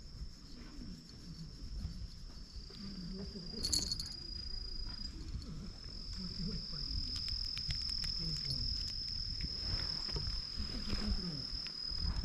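A steady high-pitched insect drone that shifts slightly in pitch about halfway, with faint scattered clicks in the second half.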